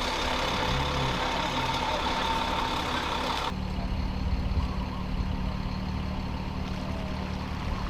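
A motor vehicle's engine running steadily. A broader noisy layer over it cuts off abruptly about three and a half seconds in, leaving a steady low hum.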